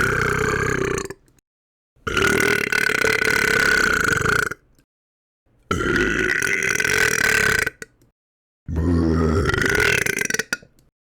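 Long, drawn-out belches one after another: the tail of one, then three more of about two seconds each with a steady pitch, each cut off by a short gap of dead silence.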